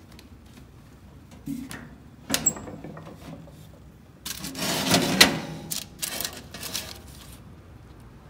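A small toaster oven's metal door clanks open about two seconds in, followed by a louder stretch of rustling and scraping as the stiff, oven-dried dyed fabric is lifted off the sheet inside, with a few more light knocks near the end.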